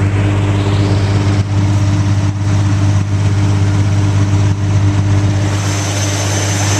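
Zanussi washing machine on spin: a steady motor hum under a loud rushing noise from the spinning drum.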